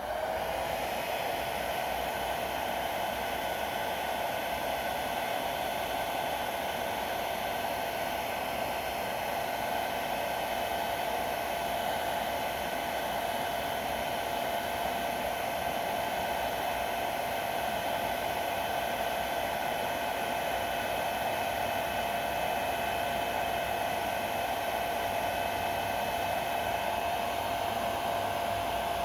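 Handheld hair dryer blowing steadily, a steady motor whine over the rush of air, used to heat the pistol's new rubberized grip so it bonds.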